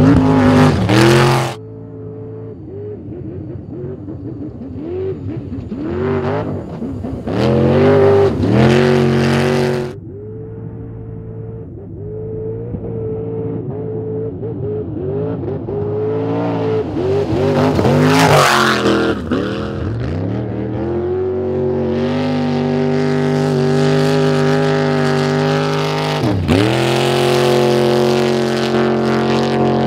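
Off-road trophy truck engine at high revs, rising and falling in pitch as the truck accelerates and lifts off, with several loud passes by, about a second in, around eight to nine seconds and around eighteen seconds, and a sudden pitch drop near the end.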